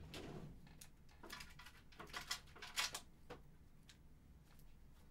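Faint rustling and scattered light clicks of small objects being handled on a workbench, with a short cluster of clicks about two to three seconds in.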